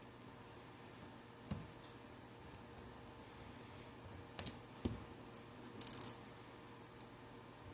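Small metallic clicks and taps from tiny screws and a small screwdriver being handled on a phone's frame, a few separate clicks with a brief scraping rattle about six seconds in.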